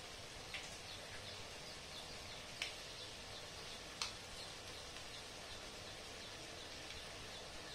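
Shallots and tomatoes frying gently in an aluminium kadai: a faint steady sizzle with small scattered crackles and two sharper pops, one about two and a half seconds in and one about four seconds in.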